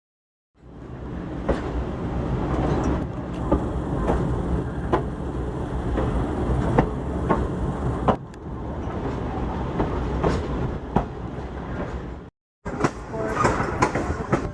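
Passenger train rolling along the rails: a steady low rumble with sharp clicks of the wheels over rail joints at uneven intervals. The sound breaks off for a moment near the end, then resumes.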